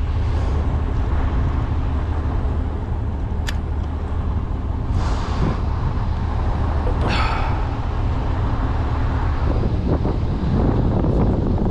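Emergency vehicles, fire trucks among them, idling with a steady low diesel rumble. A sharp click comes about three and a half seconds in, and short hisses at about five and seven seconds.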